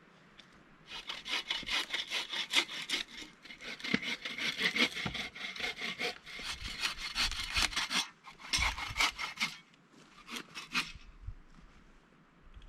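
Saw cutting through wood with quick back-and-forth strokes, a long spell of sawing followed by two short ones.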